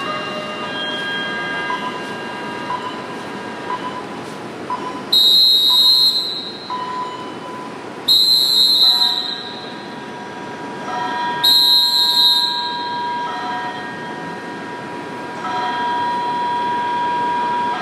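Three long, loud, high-pitched whistle blasts, about three seconds apart, as a squad of guards drills in formation. Under them, steady tones and the general noise of a busy station concourse.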